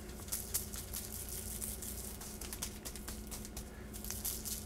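A plastic spice shaker being shaken, the dry rub rattling and pattering out onto the meat and paper in quick, irregular ticks, over a steady low hum.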